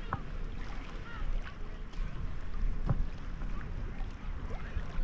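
Water splashing and lapping around a camera held at the surface by a swimmer, with small drips and splashes from the strokes over a low rumble of water on the microphone.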